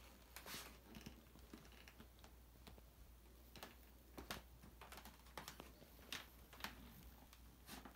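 Faint, irregular clicks and scuffles of kittens' paws and claws scrabbling on a quilt and wooden floor as they wrestle.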